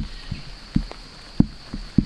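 Repeated dull thumps, unevenly spaced at two to three a second, over a steady high buzz.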